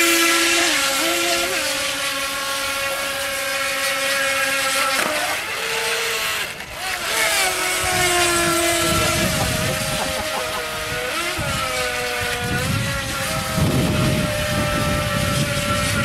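Electric motors of two FT007 radio-controlled speedboats whining at high pitch as they run on open water, the pitch rising and falling with the throttle. The whine drops out briefly about six and a half seconds in.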